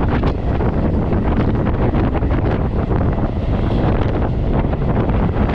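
EMU local train running at speed, its rumble under heavy wind buffeting on the camera microphone: a loud, steady rushing noise.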